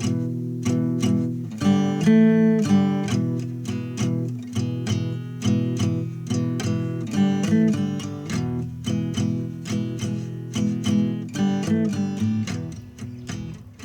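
Acoustic guitar music: chords strummed in a steady rhythm.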